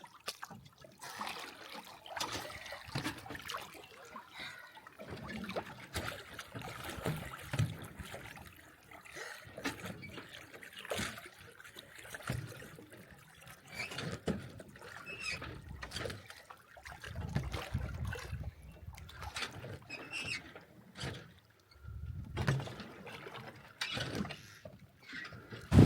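Light, irregular splashing and lapping of water against a yacht's hull in a calm sea, with small clicks and knocks.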